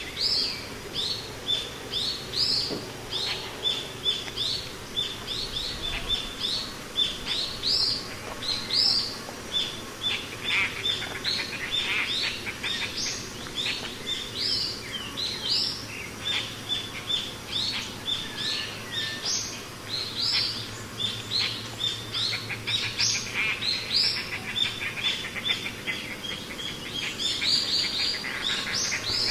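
Birds chirping with short, high notes repeated over and over without a break.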